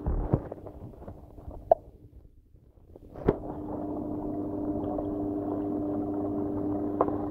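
Aquarium filter pump humming steadily, dropping almost away for about a second a little after two seconds in, then back. A few sharp knocks stand out over the hum.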